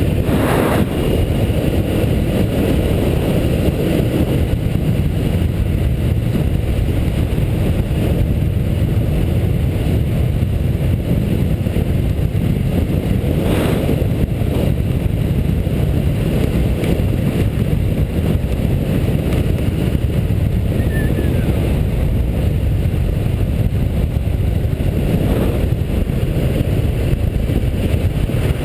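Steady, loud road and wind noise from a vehicle on the move, with a few brief louder gusts or bumps.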